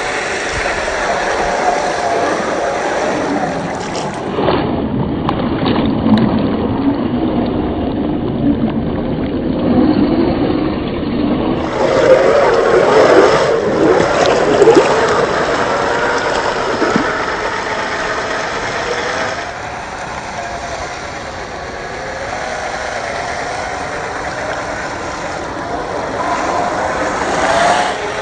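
Axial SCX10 III RC crawler's electric motor and gears whining, rising and falling in pitch as it drives through mud, across several edited clips.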